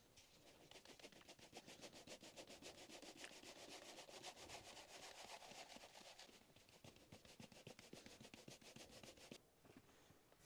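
Fast, even rubbing or scraping strokes, about six a second, that stop about a second before the end.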